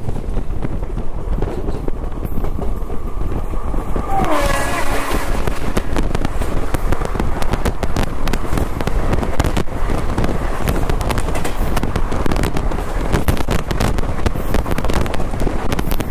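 A train passing the other way on the next track, heard from inside a moving train: its horn sounds about four seconds in, dropping in pitch as it goes by, then its coaches clatter rapidly past.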